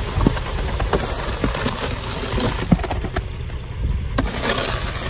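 Ready-mix concrete truck's engine running with a steady rumble while wet, gravelly concrete slides down the steel chute and pours into a post hole, with scattered clicks and knocks of stones. The pour tapers off about three to four seconds in.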